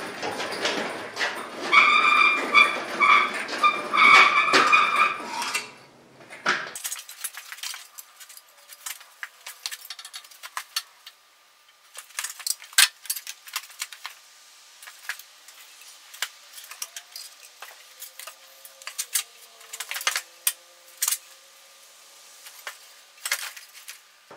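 A loud mechanical noise with a pulsing whine for the first six or seven seconds, cutting off abruptly. Then scattered light metallic clinks and rattles as a small engine is set down and worked into a mower's engine bay.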